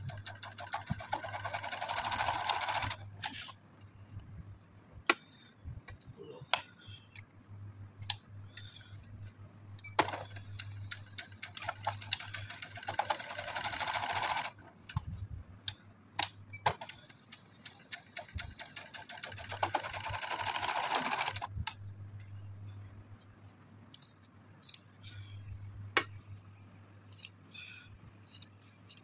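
Electric domestic sewing machine stitching in three runs of a few seconds each: one ending about three seconds in, one from about 10 to 14 seconds, and one from about 18 to 21 seconds. Between the runs there are scattered single clicks and a steady low hum.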